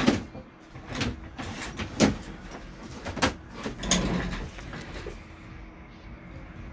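Short scrubbing and handling noises at the workbench while a circuit board is cleaned with an alcohol-wetted cotton swab. There are about five brief scrapes or knocks, roughly one a second, which stop after about four seconds.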